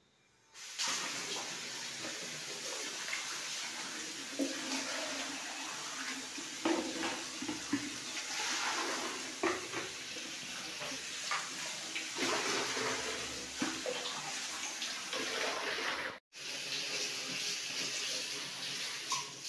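Water running from a wall mixer tap into plastic buckets, with a few short knocks over the flow. The flow starts under a second in and breaks off for a moment about 16 seconds in.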